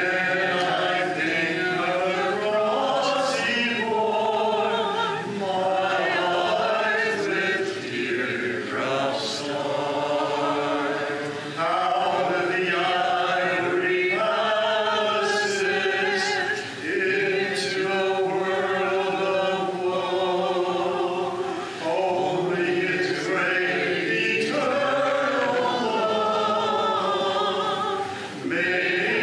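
Congregation singing a hymn a cappella, many voices together without instruments, in phrases of long held notes.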